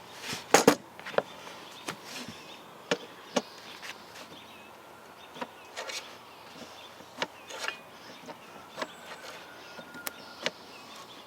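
Scattered light clicks and knocks of hand work on a chainsaw bar as its nose is greased, with a few louder knocks about half a second in.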